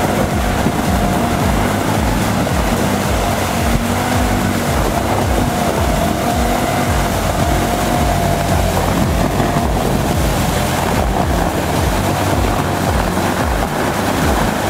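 A CFMoto side-by-side UTV's engine running steadily, with a wavering whine, as it wades through shallow river water, its oversized tires splashing water all around.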